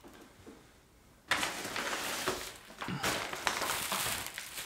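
Crinkling of a clear plastic packaging bag being picked up and handled. It starts about a second in, after a near-quiet moment.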